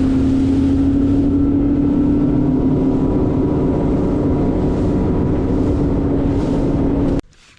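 Fishing boat's motor running steadily under way, a constant hum over rumble and wind noise; it cuts off suddenly near the end.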